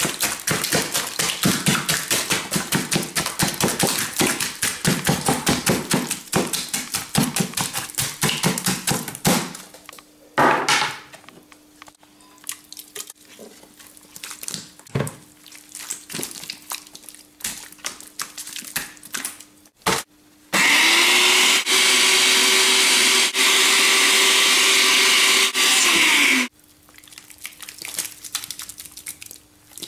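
Mixed food being stirred and mashed by hand in a glass bowl, a rapid run of clattering strokes, followed by a knock as it is tipped out. Later a countertop blender motor runs steadily for about six seconds, the loudest sound here, and cuts off suddenly.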